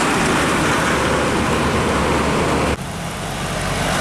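A loaded Mitsubishi truck passing close by, its diesel engine and tyres loud and steady. The sound cuts off abruptly about three-quarters of the way through, giving way to quieter road traffic with a truck approaching.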